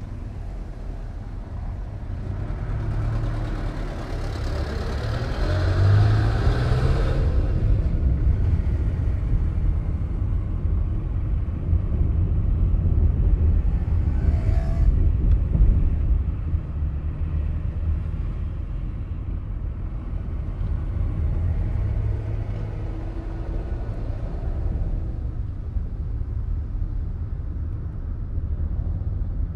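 Car driving along a road: a steady low rumble of engine and tyres. It grows louder with a rising note between about three and seven seconds in, and a brief higher sound comes about halfway through.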